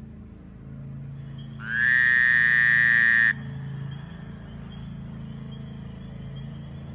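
Low droning background music, with one loud high electronic tone that slides up briefly, holds for about a second and a half, then cuts off suddenly.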